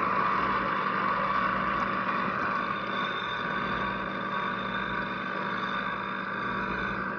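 Single-serve coffee maker brewing, a steady mechanical hum as coffee runs into a paper cup, easing slightly a few seconds in.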